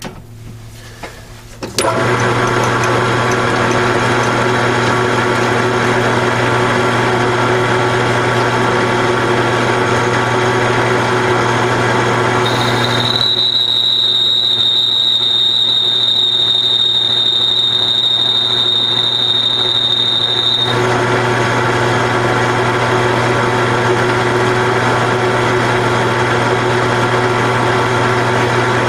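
A Grizzly G4003G gear-head metal lathe starts up suddenly about two seconds in and runs steadily with a hum, spinning a chuck backing plate. For several seconds in the middle, a steady high whine rides over the running lathe.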